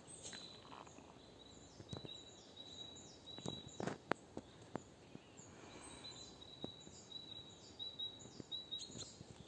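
Faint woodland birdsong: a bird repeats a quick high note that falls in pitch, over and over, in two runs. A few sharp clicks and snaps come through in the middle.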